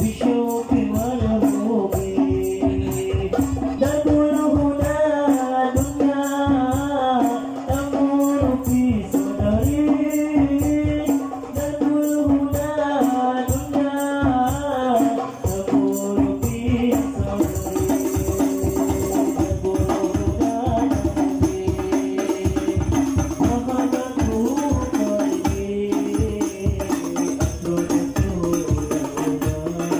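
Hadroh ensemble playing: rebana frame drums beating a fast, steady rhythm under singing of a devotional sholawat melody.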